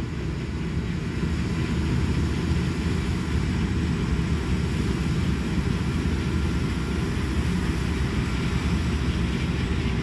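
Combine harvester cutting, a steady low drone of engine and threshing.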